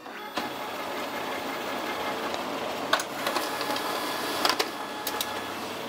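Pantum M6702DW monochrome laser printer running a copy job, scanning and printing a document: a steady mechanical whir that starts a moment in, with sharp clicks about three and four and a half seconds in.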